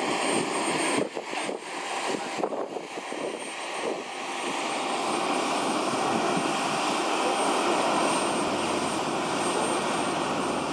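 Steady jet aircraft noise on an airport apron: an even roar with a thin high whine, dipping briefly a few times in the first seconds and then holding steady.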